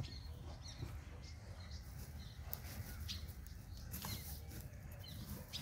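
Quiet crunching and rustling of a hand crumbling and pressing loose garden soil in a plastic grow bag, with a few short sharp clicks, over a steady low hum. A few faint high chirps come through as well.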